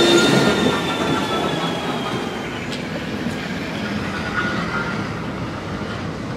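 Train running with a high, steady wheel squeal at two pitches that drift slightly down and fade out about two and a half seconds in, leaving a steady rushing rumble.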